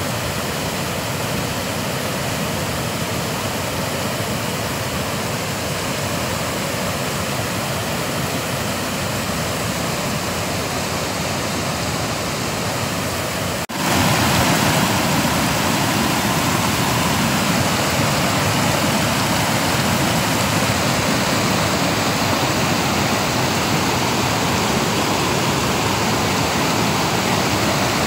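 Swollen floodwater of a river rushing over rocks: a steady rushing noise. About halfway through it cuts abruptly to a louder, deeper steady rush of water.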